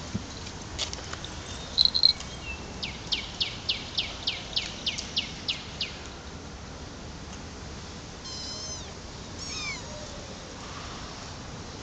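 Young kittens mewing: two high, thin mews about eight and nine and a half seconds in, the second falling in pitch. Earlier comes a run of about a dozen quick high chirps, about three a second.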